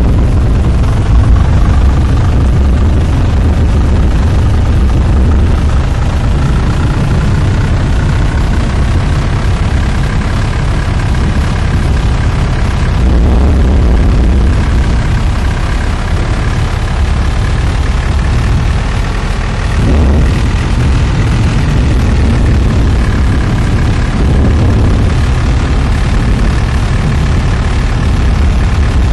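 Loud, steady low rumble of strong wind and the heavy engine of the armoured Tornado Intercept Vehicle 2, with faint whistling tones that drift slowly in pitch.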